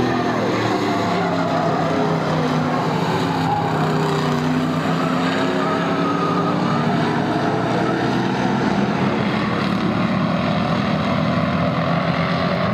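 Several stock car engines running at race speed around a short oval track. Their engine notes rise and fall as the cars pass.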